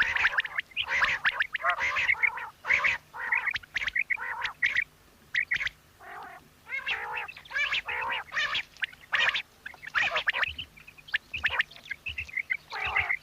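Quail calling: a busy string of short, sharp chirping notes repeated about twice a second, with brief pauses between bursts.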